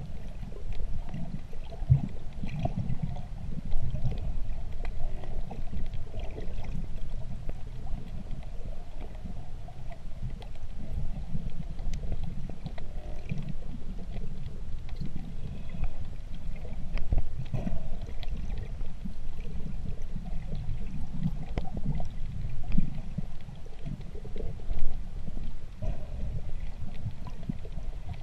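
Underwater sound through an action camera's waterproof housing: a steady, muffled low rumble of water moving past as the diver swims, with faint scattered clicks.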